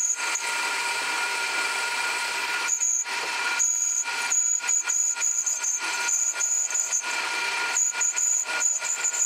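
Myford lathe running while a hand-ground 1/16-inch grooving tool cuts a piston-ring groove in a cast piston: a steady machine whine under a rough, crackling cutting hiss that eases off briefly a couple of times as the tool is fed in.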